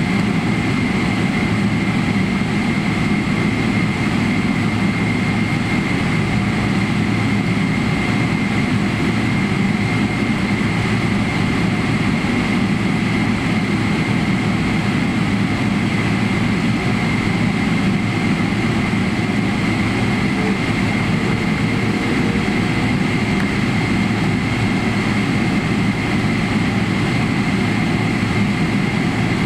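Boeing 777-300ER's GE90 turbofan engines running at low power while the airliner taxis, heard inside the cabin: a steady rumble with a thin, high, steady whine over it.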